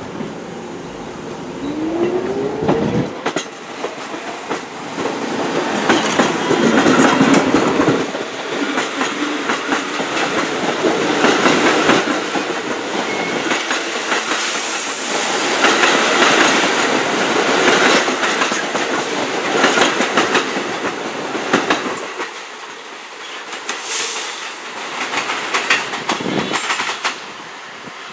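New York City subway trains running through the station, their wheels clattering over rail joints and switches. About two seconds in, a rising whine is heard, like a train's motors speeding up as it pulls away.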